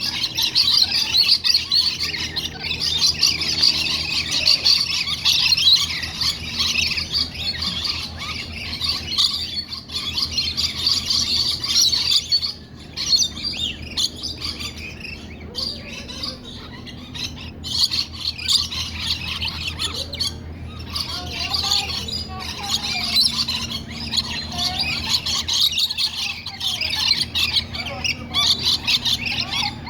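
A flock of birds chattering and squawking continuously, with many high calls overlapping and a steady low hum underneath.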